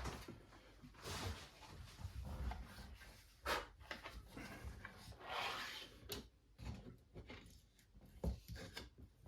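Knife packaging being handled and opened by hand: quiet rubbing and sliding of the box and wrapping, with a few light knocks.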